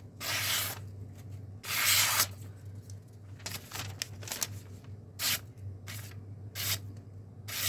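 Cheap full-tang chef-style knife's edge being tested for sharpness: two longer scraping strokes, then several shorter, quicker ones.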